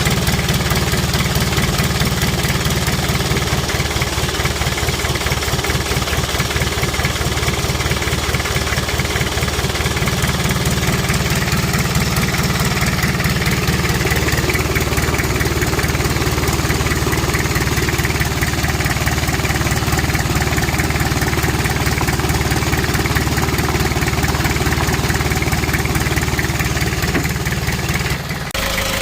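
Kia Bongo Frontier's 3.0 JT diesel engine running steadily at idle with an even diesel clatter.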